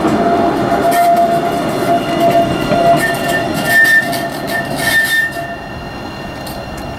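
Alstom Citadis low-floor tram passing close by: running noise with steady high-pitched tones over it, a higher tone joining about three seconds in. The tones stop about five seconds in, and the sound quietens after that.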